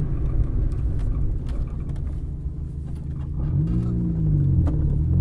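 Fiat Punto 1.2's four-cylinder engine running at low revs inside the cabin as the rally car rolls slowly after the stage, with one brief rise and fall in revs about three and a half seconds in.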